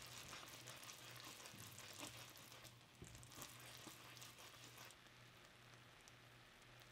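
Caramel sauce sizzling and bubbling faintly in a small nonstick pan as a silicone spatula stirs it: a soft steady hiss with many small crackles, over a faint low hum.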